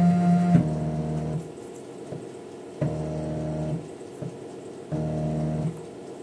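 Emco F1 milling machine's Z-axis stepper motor driving the head down: a steady run that changes pitch about half a second in and stops about a second and a half in, then two shorter runs of about a second each, jogging the cutter down toward a slip gauge.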